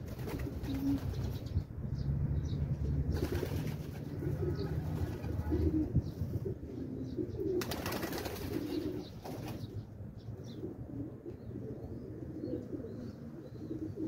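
Domestic pigeons cooing, short low calls repeated again and again, with two brief rushes of noise, one about three seconds in and one about eight seconds in.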